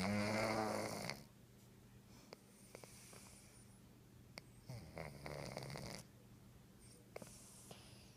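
Domestic cat snoring in its sleep: two snores about a second long each, a louder one at the start and a quieter one about five seconds in, with soft breathing between.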